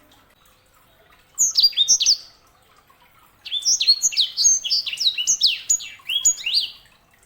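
Yellow-fronted canary (sanger) singing: a short burst of quick chirps, then after a pause of about a second a longer run of rapid, high sweeping notes lasting about three seconds.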